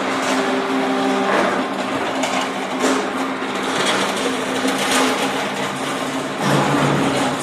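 Block-making plant machinery running: a steady hum and dense hiss, broken by irregular knocks and clatter about once a second.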